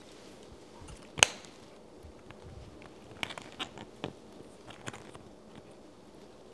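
Hard plastic clicking and tapping as 3D-printed model parts are handled and pressed into place: one sharp click about a second in, then a cluster of lighter clicks a couple of seconds later.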